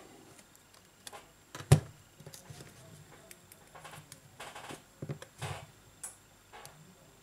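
Handling noises from an opened smartphone being worked by hand: scattered light clicks and taps, one sharper knock a little under two seconds in, and brief scraping rustles.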